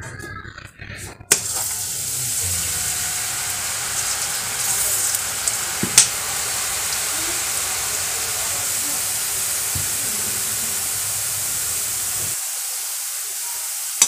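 Besan (gram-flour) bhujia batter sizzling steadily in hot oil in a kadhai as it is squeezed in and fries; the sizzle starts suddenly about a second in. A single sharp click comes about midway.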